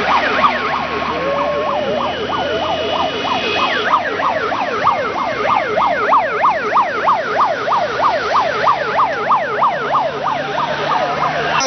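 Electronic vehicle sirens sounding in a fast yelp, with pitch sweeping up and down about three times a second, over steady vehicle noise. A few held tones come first, then the yelp takes over from about four seconds in.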